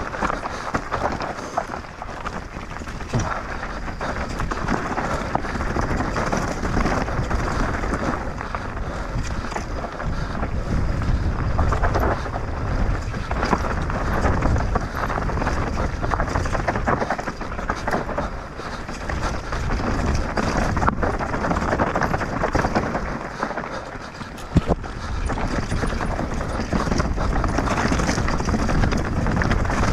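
Enduro mountain bike ridden downhill at race pace over rough ground: constant tyre noise on rock and gravel with the frame, chain and suspension rattling and clattering. There is a sharp knock about two-thirds of the way through.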